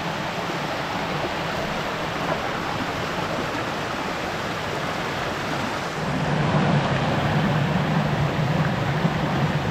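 Small rocky stream running and splashing over stones and little cascades. About six seconds in the water sound gets louder and deeper, with a low rumble.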